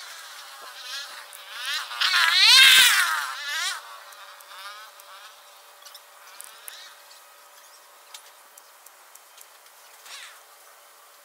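A flying insect buzzing close past the microphone, its wingbeat hum wavering rapidly up and down in pitch, swelling to its loudest about two to three seconds in and fading away by about four seconds. A shorter pass with a falling pitch comes near the end.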